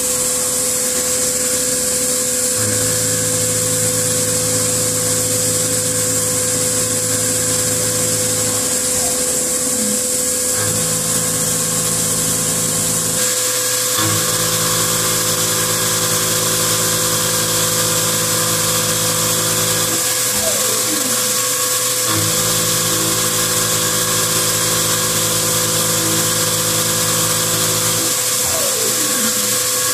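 1989 Kitamura Mycenter 1 CNC vertical machining center running a milling cut with coolant spraying: a steady high hiss and a steady whine, with a lower hum that cuts in and out in stretches of several seconds. A brief falling whine sounds about twenty seconds in and again near the end.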